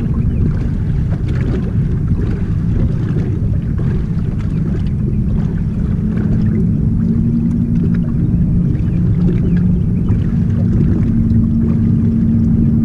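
Steady low rumble and hum of a bass boat's motor running, the hum growing stronger about halfway through, with faint scattered clicks over it.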